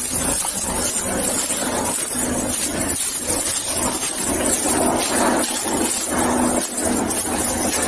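Steady rustling and scuffing of footsteps through dry leaf litter, with clothing and leash rubbing against a body-worn camera microphone.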